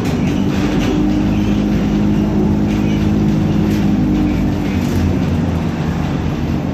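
ZiU-682 trolleybus running, with a steady electric hum and a few brief clicks and rattles.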